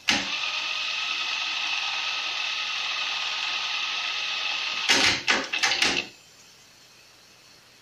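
Sony TC-WR545 cassette deck fast-winding the tape during a music search: a steady whir from the transport. About five seconds in it stops with a cluster of mechanical clicks and clunks as the mechanism switches over, followed by a quiet gap before the next track.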